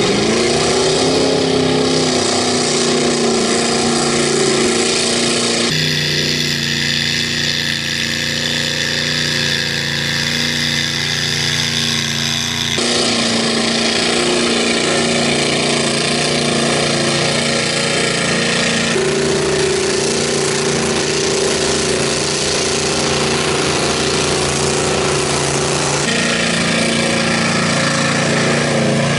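Mega mud truck engine running hard at high, steady revs as a lifted Ford Ranger churns through a mud pit. The pitch and tone jump abruptly several times.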